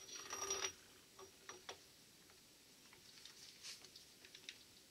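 Borg-Warner T-10 four-speed mainshaft assembly, its gears and bearing retainer, handled on a workbench: a short metallic clatter at the start, then a few faint ticks and taps.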